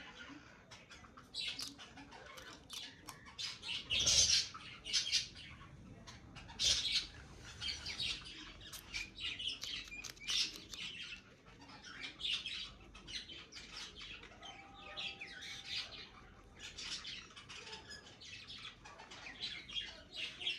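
Guinea pig chewing a fresh green bean: quick, crisp crunching clicks in irregular clusters, loudest about four seconds in.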